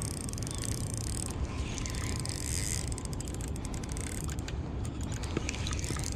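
Spinning reel's ratchet and drag clicking in spurts while a hooked queenfish is played, over a steady low rumble.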